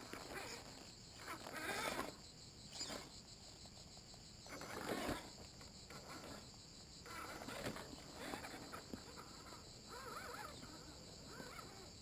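1/10 Axial SCX10 RC scale crawler's electric motor and gears whining, the pitch rising and falling with the throttle, with short crunches of the tyres over dry pine needles and gravel.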